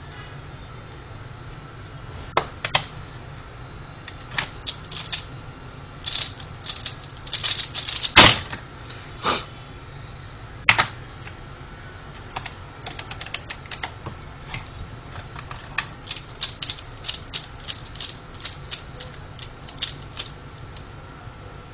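Pyraminx puzzle being turned rapidly by hand: clusters of quick plastic clicks in bursts, with one much louder knock about eight seconds in.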